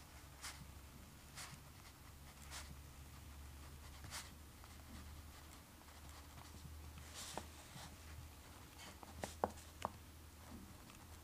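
Writing on paper in a journal: faint, short scratchy strokes every second or so, with two sharper clicks near the end, over a low steady hum.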